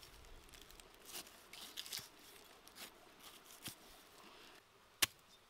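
A large knife cutting through a pineapple's rind and flesh, in a run of short, crisp, crunchy strokes at an uneven pace. About five seconds in comes one sharp tap, the loudest sound.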